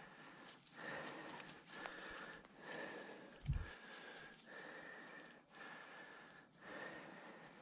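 A person's heavy breathing close to the microphone, in rushes about a second apart, as the hunter walks forward through the grass. A single low thump about three and a half seconds in is the loudest sound, and a faint steady high whine runs underneath.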